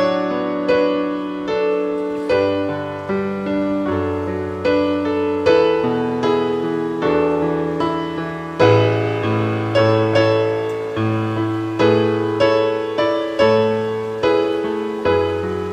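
Background piano music: a slow line of struck notes that fade, over held low notes.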